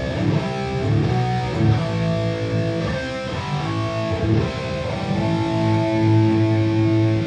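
Electric guitar played through a Boss Katana Gen 3 212 combo amp: several strummed chords, then a chord left ringing from about five seconds in.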